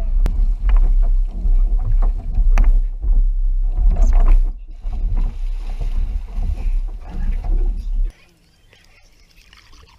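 Jet ski riding over choppy water: a constant low rumble with repeated splashes and knocks as the hull slams the waves, cutting off suddenly about eight seconds in.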